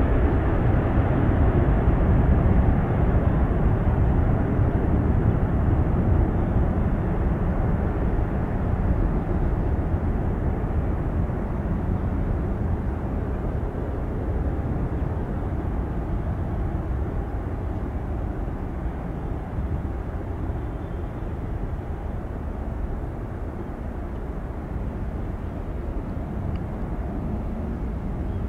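Boeing 747 freighter's four jet engines at climb-out after take-off: a deep, steady rumble that slowly fades as the aircraft climbs away.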